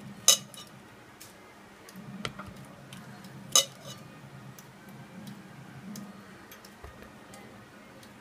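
Two sharp clicks against a plastic plate about three seconds apart, with a lighter tap between them, as raw fish steaks are set down on it one at a time. A faint steady low hum runs underneath.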